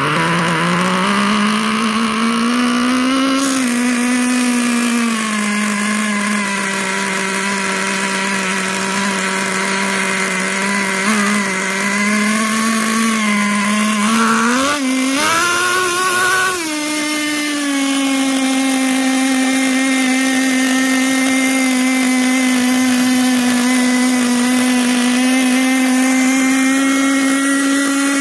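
Small two-stroke nitro glow engine of an RC monster truck running at a steady idle. Its pitch wavers and rises briefly past the middle, then settles into a steady idle a little higher.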